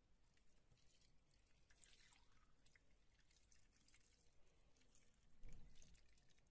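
Faint pouring and trickling of liquid jelly from a glass bowl onto custard and fruit slices, with a soft low bump about five and a half seconds in.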